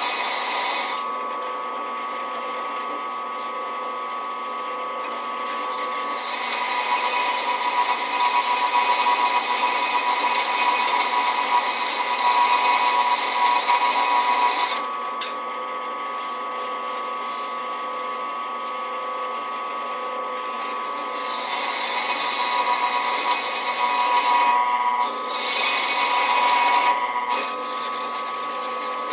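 Drill press running with a steady whine, its bit drilling through stacked steel pieces, growing louder as it bites into the metal from about six to fifteen seconds in and again from about twenty-one to twenty-seven seconds.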